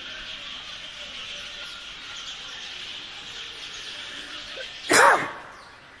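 A flock of sparrows chirping steadily, with one loud, short animal cry about five seconds in that falls in pitch.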